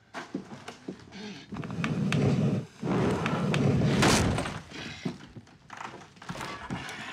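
A physical scuffle: a run of thuds and knocks as bodies and furniture are banged about. It peaks in a louder crash about four seconds in, then settles into scattered knocks.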